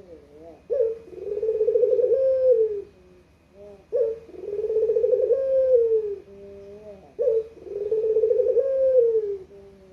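Puter (Barbary dove) cooing three times. Each call is a short clipped note followed by a long, rolling coo that slides down in pitch at the end.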